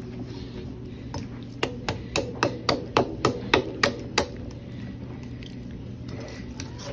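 Large kitchen knife chopping down through a raw chicken along its backbone: a run of about eleven quick knocks, about four a second, as the blade strikes through onto the metal roasting pan beneath. The knocks start about a second in and stop about four seconds in.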